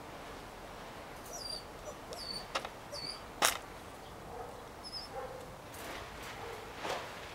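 Puppies in a wire pen giving faint whimpers and yips as they play, with a few high, falling chirps in the first three seconds. A sharp knock about halfway through is the loudest sound.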